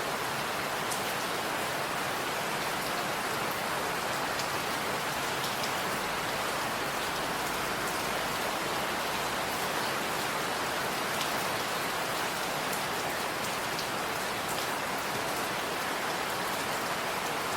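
Steady rain falling in a forest: an even, dense hiss of rain with scattered individual drops ticking over it.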